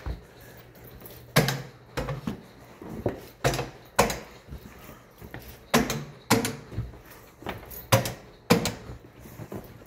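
A run of sharp knocks and clacks, mostly in groups of two or three about half a second apart, over a faint steady low hum.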